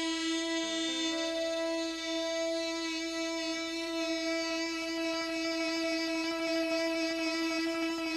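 Devotional bhajan accompaniment: a harmonium holds one long steady note, rich in overtones, between sung lines.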